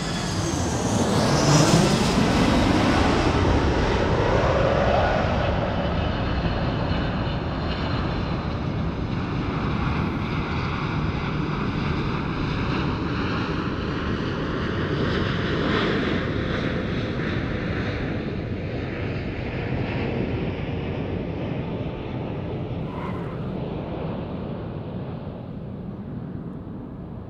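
Jet airliner flying low overhead. The engine noise swells over the first couple of seconds with a whine that slides in pitch as it passes, then becomes a long rumble that slowly fades away.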